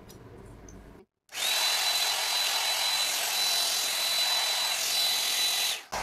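5-in-1 hot air styler running: the rush of its fan with a steady high motor whine. It starts sharply about a second in and cuts off just before the end.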